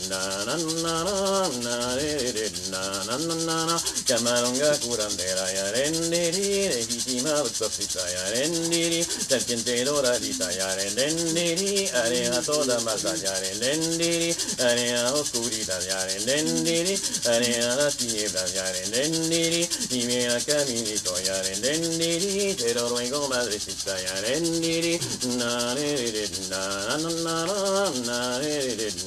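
An icaro, a ceremonial ayahuasca healing song, sung in a wordless gliding melody over a steady shaken rustle.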